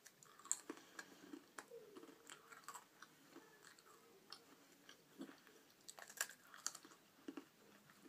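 A person biting and chewing dry crackers, with faint, irregular crunches.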